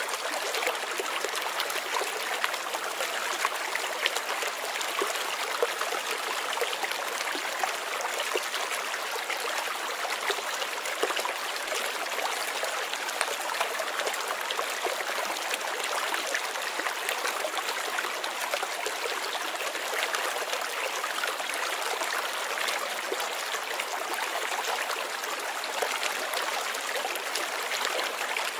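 Running water from a stream or brook, a steady rush with many small splashes and trickles.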